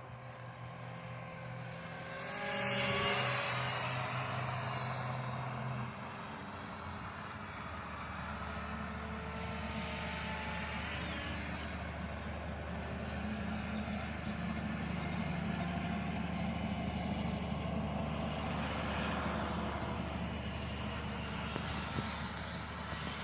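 KDS 450SV electric RC helicopter in flight: the rotor's whirring hum with the motor's high whine above it, both rising and falling in pitch as it manoeuvres. It is loudest about two to four seconds in, and the low hum drops in pitch a little later.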